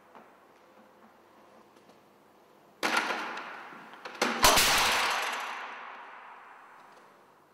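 Objects toppling onto a concrete floor: a sharp crash about three seconds in, then a louder clattering crash a second and a half later as a folding metal chair collapses with a plastic bucket and ball. Each crash rings out for a few seconds in the bare, echoing room.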